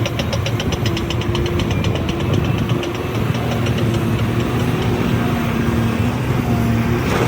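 An engine idling steadily, with a fast, regular knocking tick over its low hum.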